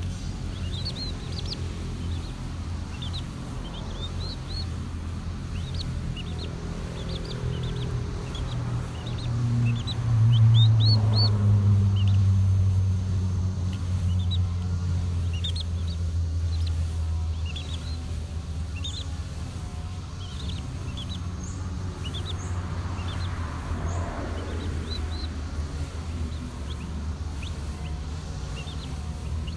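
Several young chicks peeping, many short rising peeps scattered throughout, while they are hand-fed cooked rice. Under them runs a steady low hum that swells and is loudest from about ten seconds in.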